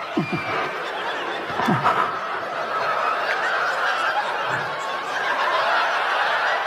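Audience laughing in a long, steady wave.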